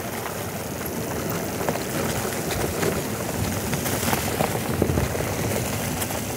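Electric mountain bike's tyres rolling down a steep dirt trail over a thick layer of fallen leaves: a steady crackling rush with frequent small clicks and knocks from the bike.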